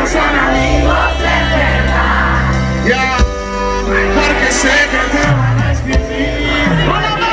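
Live reggaeton concert music over a loud PA, recorded from the crowd: a male singer sings into a microphone over a steady bass line. The beat breaks off briefly about three seconds in.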